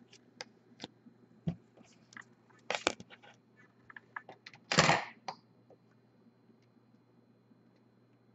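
Hard plastic card holder handled and set down on a table: scattered light clicks and taps, a louder knock near three seconds in and a short, louder rustling scrape just before five seconds in.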